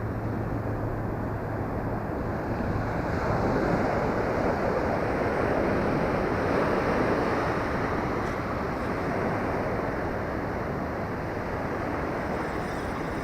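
Ocean surf breaking and washing up the beach, a steady rush that swells a few seconds in, with wind buffeting the microphone.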